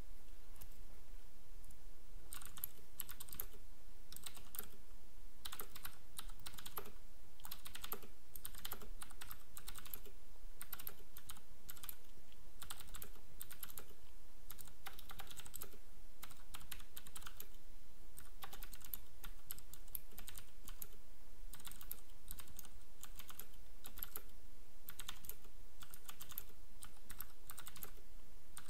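Typing on a Filco Majestouch 2 mechanical keyboard with Cherry MX Blue switches: a fast, irregular run of sharp clicky keystrokes.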